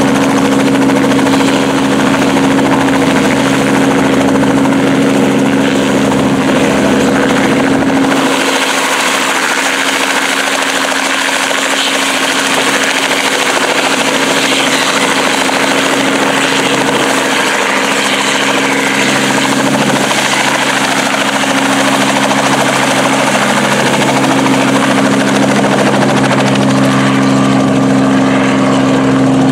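Light two-bladed helicopter's engine and rotor running at the pad, then taking off and flying away low: a steady drone made of several hum tones. About eight seconds in, the deep rumble drops away and a broad rushing sound rises as the rotor works harder.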